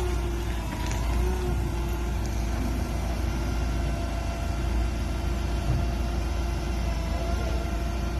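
Propane-fuelled Yale forklift engine running steadily while it draws a heavy load out of a trailer: a constant low hum with faint steady whining tones over it.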